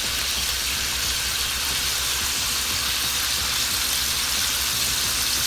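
Thin slices of beef sizzling steadily as they fry in hot oil in a frying pan, with a low steady hum underneath.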